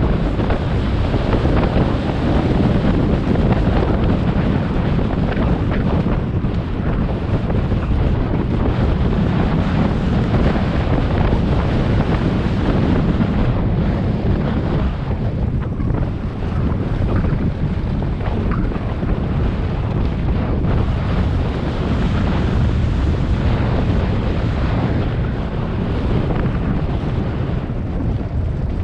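Wind buffeting a helmet or chest camera's microphone during a fast mountain-bike descent, mixed with the steady rumble of tyres on a rough dirt trail and small irregular knocks from the bike.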